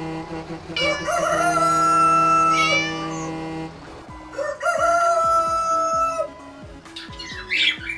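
A rooster crowing twice, each crow about two seconds long, held steady and then dropping in pitch at the end.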